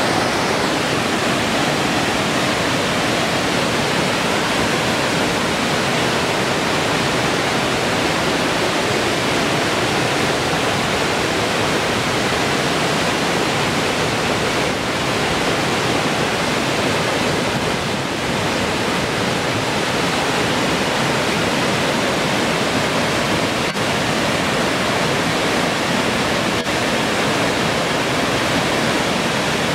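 Provo River Falls: a river waterfall pouring over stepped sandstone ledges into a pool, a loud steady rush of falling and splashing water.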